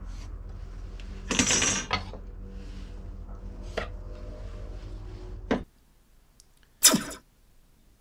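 Steel rule and square clattering and scraping as they are handled and set down on a wooden workbench during marking out, with a few sharp clicks; the loudest clatter comes just over a second in and another near the end. A low steady hum underneath cuts off suddenly about two-thirds of the way through.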